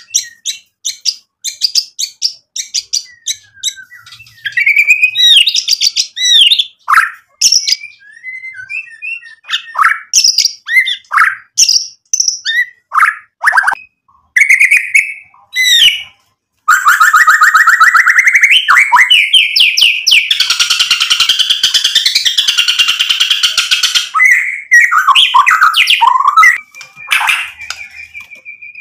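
Caged male white-rumped shama (murai batu) singing a long, varied song of quick whistled, chirping and sliding phrases. About halfway through, after a brief pause, it breaks into several seconds of continuous very rapid trilling that turns into a harsh, buzzy rattle, then goes back to varied phrases.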